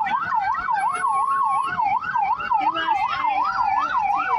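Emergency-vehicle siren in fast yelp mode, its pitch sweeping up and down about three to four times a second. A second, slower siren tone glides gradually lower underneath.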